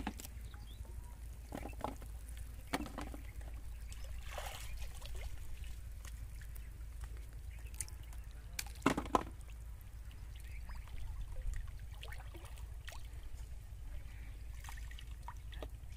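Pond water trickling and sloshing as a person wades waist-deep and lifts plastic bottle fish traps out of the water, with scattered small splashes and knocks; the sharpest splash comes about nine seconds in. A low steady rumble runs underneath.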